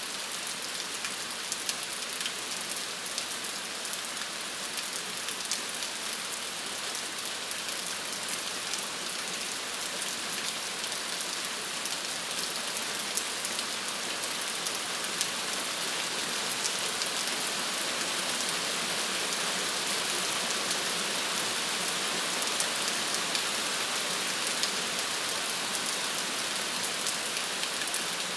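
Steady rain falling, an even hiss dotted with fine individual drop ticks, getting slightly louder in the second half.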